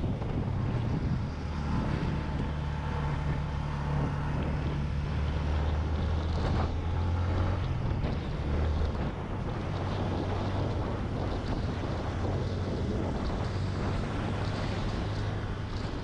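Motorcycle engine running at a steady cruise, with wind rushing over the microphone.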